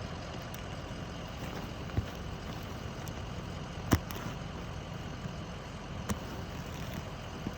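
Steady low mechanical rumble, like an idling engine, with three sharp knocks about two seconds apart; the middle one is the loudest.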